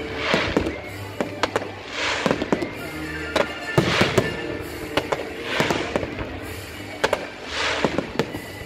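Fireworks display: sharp bangs and swelling crackles of bursting shells, a crackling burst about every two seconds, with music playing underneath.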